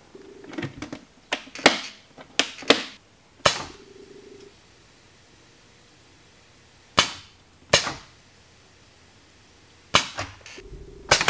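A series of sharp clicks and clacks as the switches and joystick of a homemade milling-machine power feed are worked on its first test run, some in quick pairs and some with a short hiss after them. Between them the feed motor hums steadily in short stretches, near the start, around four seconds in and again near the end.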